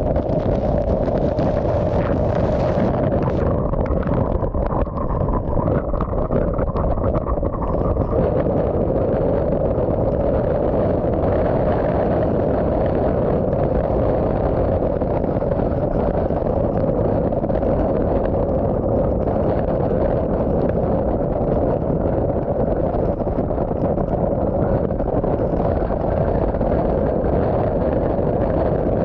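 Hurricane-force wind and driving rain heard from inside a vehicle's cabin: a steady loud rush with a constant droning tone, and a harsher hiss in the first few seconds.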